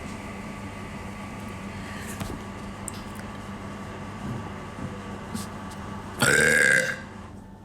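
A person's loud burp, lasting under a second, about six seconds in, over a faint steady background hum.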